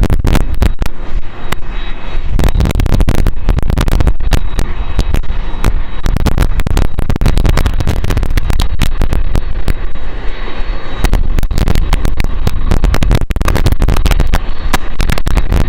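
Jet engines of a taxiing Boeing 767-300ER airliner at low power, a steady low rumble heavily broken up by loud, irregular crackling noise from wind buffeting the microphone.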